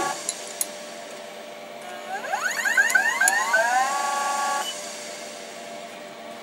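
Motor whine from a Denford Orac CNC lathe. A steady whine cuts off at the start. About two seconds in, a whine sweeps up in pitch, holds steady and cuts off abruptly a little before five seconds, leaving a quieter machine hum.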